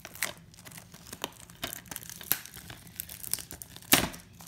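Handling noise from a plastic DVD case being moved about on a shaggy rug: scattered light clicks and crinkly rustles, with one louder brushing knock about four seconds in.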